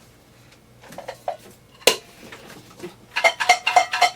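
Homemade shaker, a small metal-capped container with foam cushion pieces inside, handled with a sharp knock and then shaken fast from about three seconds in: a rapid rattle of about six shakes a second with ringing metallic clinks.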